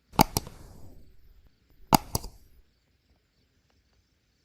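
Shotgun blasts in two quick pairs, one at the start and another about two seconds in, each blast ringing out briefly before fading.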